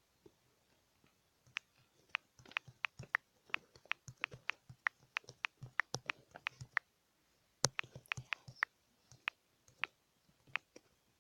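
Typing: a run of quick, irregular key clicks that begins about a second and a half in, pauses briefly around seven seconds, then picks up again.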